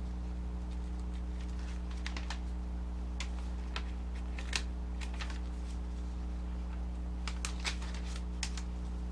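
Paper pages of an instruction booklet being turned and handled, in scattered short rustles and clicks, over a steady low hum.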